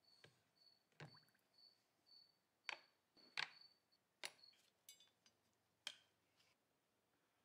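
Sparse light clicks and taps of small steel gun parts being handled and set into a plastic tub of liquid, over near silence. A faint high chirp repeats about twice a second and stops about four seconds in.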